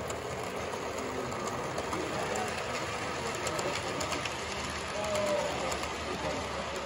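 Model steam locomotive and its passenger cars rolling past on the layout track: a steady running sound of wheels on the rails.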